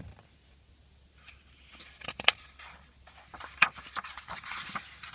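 Pages of a hardcover picture book being turned by hand: paper rustling with two sharp flicks, about two seconds in and again a second and a half later, then a longer rustle near the end.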